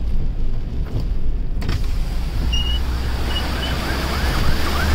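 A vehicle's side window opens about a second and a half in, and the loud rush and splash of deep floodwater churned up along the vehicle's side comes in over its engine. Near the end a fire truck siren starts faintly behind, wailing in rising and falling sweeps.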